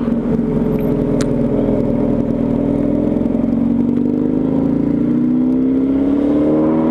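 Motorcycle engine pulling steadily under acceleration, its pitch rising slowly and evenly as the bike gathers speed. There is a single short tick about a second in.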